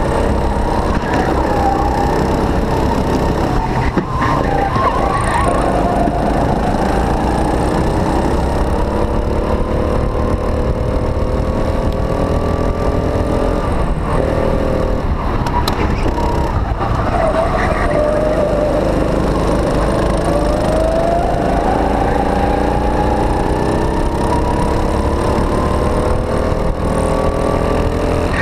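Racing kart engine heard onboard at full race pace. Its pitch rises along the straights and drops into the corners, over a steady low rumble of wind on the microphone. Other karts' engines run close by.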